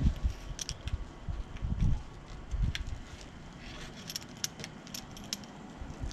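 Handling noise from hand work: scattered light clicks, taps and rattles, thickest about four to five seconds in, with a few dull low knocks.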